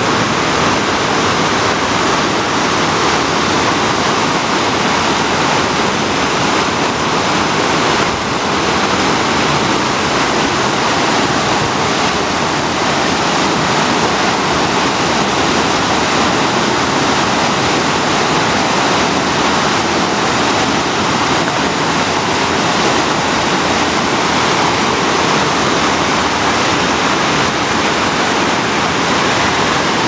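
Water cascading down a rock face in a man-made waterfall: a loud, steady rush.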